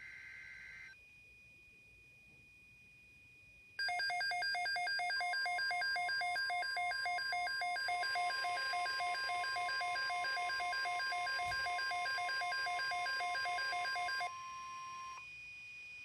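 The end of an Emergency Alert System data header's warbling tone burst, then after a short pause about ten seconds of loud, rapidly pulsing electronic alarm with the steady 1050 Hz NOAA Weather Radio warning tone sounding under it. The steady tone holds about a second after the pulsing stops. Together they signal an incoming Tornado Watch alert.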